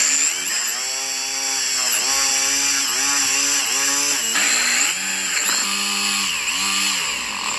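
Corded electric drill boring a large hole into a wooden block. Its motor whine sags in pitch each time the bit bites into the wood, about once a second, and recovers in between, with the deepest dip about halfway through.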